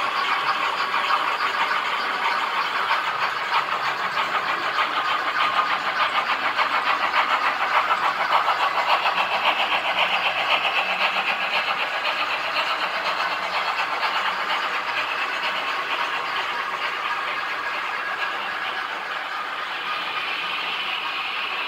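Model trains running on the layout: the rapid, rhythmic clicking and rattle of wheels over the track, with motor hum, easing off near the end as the trains pass.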